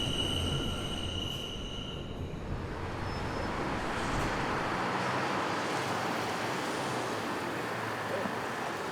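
New York City subway train, its wheels squealing in a high steady tone that fades out about two and a half seconds in, then a steady rumble and hiss of train noise; the low rumble drops away about five seconds in.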